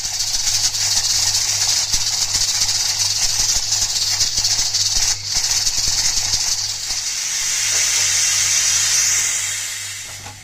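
Steam hissing steadily out of a pressure cooker's valve, tapering off near the end as the pressure comes down.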